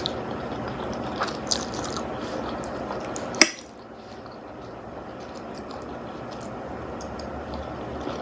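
Wet chewing and squishing of a mouthful of spaghetti and meatballs, with small clicks and one sharp click about three and a half seconds in.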